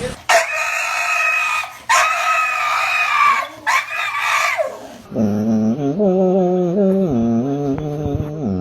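Animal calls: three high-pitched drawn-out calls one after another, then a lower, wavering, long-drawn call from a different animal about five seconds in.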